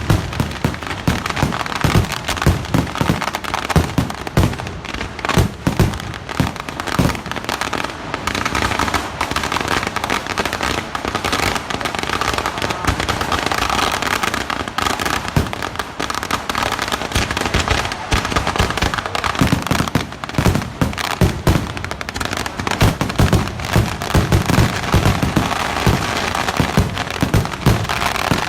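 Kerala temple-festival fireworks (vedikkettu) going off in a dense, continuous barrage of rapid firecracker bangs and crackling. Heavy low booms come thick through about the first eight seconds and again over the last several seconds, with a crackling spell between.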